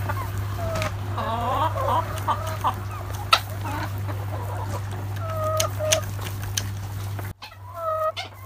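Hens clucking in short calls, with a few sharp taps, over a steady low hum that cuts out near the end.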